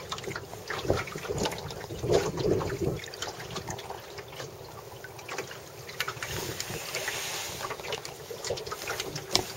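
Wind buffeting the microphone and water slapping and splashing against the hull of a small wooden Miracle sailing dinghy under way on choppy water, with irregular knocks and a sharp knock near the end.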